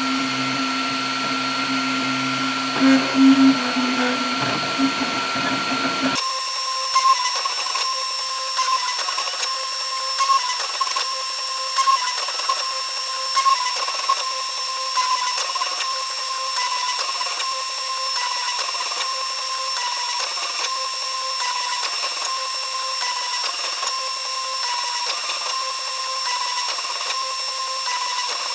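Flashforge Adventurer 5M 3D printer printing at speed: stepper motors whining in shifting tones as the print head moves back and forth, with the rattle of the shaking workbench. About six seconds in, the low rumble drops out abruptly and the higher whine carries on.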